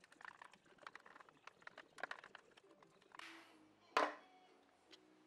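Quick light clicks and ticks of a hand screwdriver driving screws into a thin wooden miter saw insert set in the saw's metal table. About three seconds in comes a short scraping swish, then a sharp metallic clack as a metal block plane lands on the insert and table. Faint music with steady held notes enters near the end.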